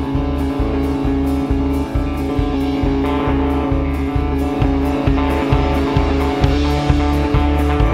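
Instrumental band music: guitar over drums and bass, with a steady beat about twice a second.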